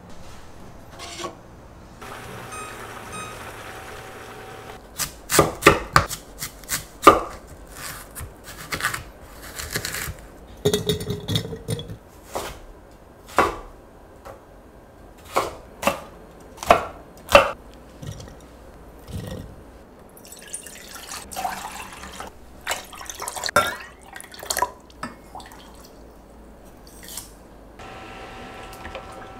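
Kitchen knife chopping white radish into cubes on a wooden cutting board: a run of sharp, irregular chops, then more scattered knocks and clatter.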